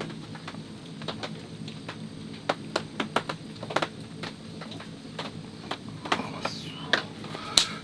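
Black pepper being ground over food: a run of irregular sharp crackling clicks, with one louder click near the end, over a steady low background noise.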